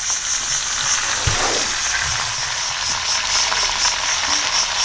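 Lamb and baby potatoes sizzling steadily in a cast-iron pot over hot charcoal. Insects chirr in a fast, steady pulsing rhythm behind it.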